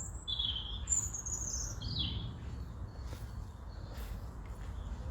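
Wild songbirds calling in woodland: three short chirping phrases in the first two seconds, one of them very high, over a steady low rumble.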